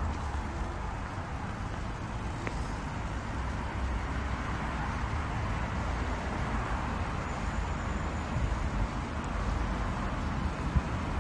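Steady outdoor background noise with a constant low rumble, of the kind made by road traffic.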